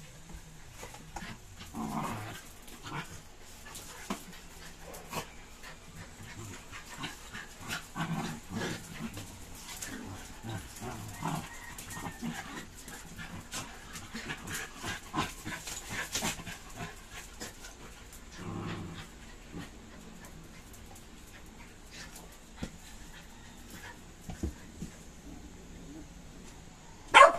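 Several dogs play-fighting: low growls, panting and scuffling, with claws clicking on a tile floor, and one short, loud bark near the end.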